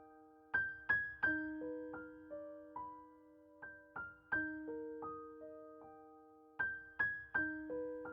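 Soft background music on piano or electric piano: gentle single notes and broken chords that ring out and fade, in short phrases with brief pauses between them.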